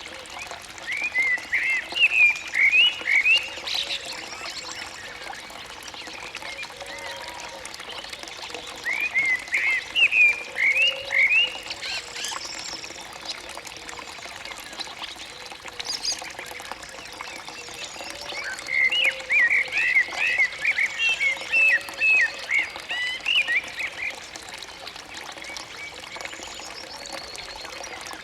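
Three bouts of rapid, high chirping animal calls, each a few seconds long, over a steady trickle of running water.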